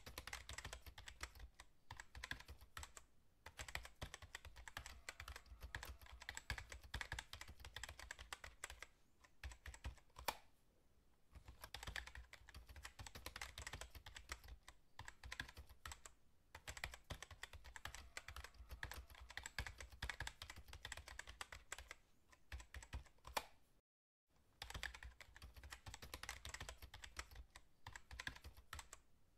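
Keyboard typing sound effect: quiet, rapid key clicks in runs, broken by short pauses. There is a longer lull about a third of the way in and a brief dead silence near the end.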